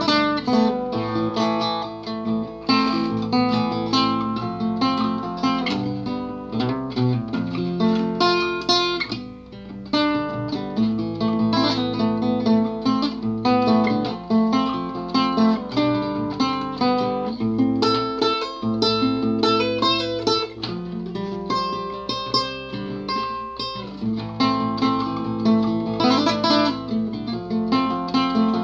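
Acoustic guitar played fingerstyle: a continuous solo instrumental of plucked notes and chords, easing off briefly about nine seconds in.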